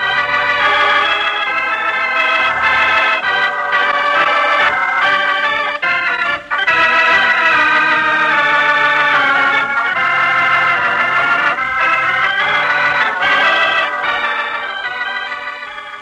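Organ music: full, held chords of a closing theme, dipping briefly twice about six seconds in and fading out over the last second or two.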